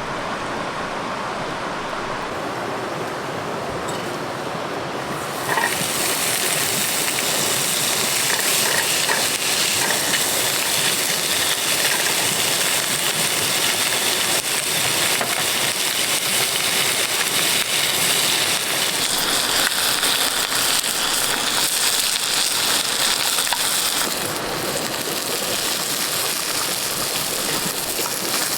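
Food sizzling as it cooks. The hiss starts suddenly about five and a half seconds in, over a quieter, duller noise, and eases off slightly near the end.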